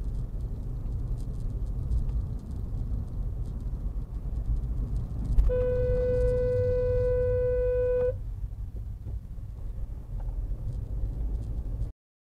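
Car horn held in one long blast of about two and a half seconds, a single steady pitch, about halfway through. Under it runs the low rumble of a car driving, heard from inside the cabin.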